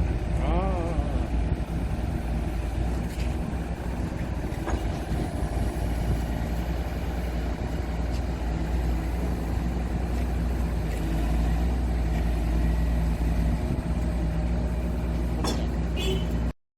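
Hydraulic excavator's diesel engine running steadily at throttle dial setting 5, a constant low hum that breaks off abruptly near the end.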